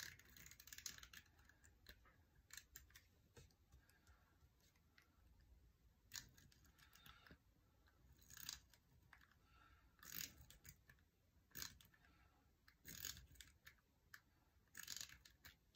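Correction tape roller drawn across paper in a series of short, faint swipes, one every one to two seconds, covering printed lines on a planner page.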